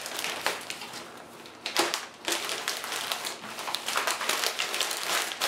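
Packing paper crinkling and rustling in irregular crackles as it is folded in around a stack of plates, briefly quieter about a second in.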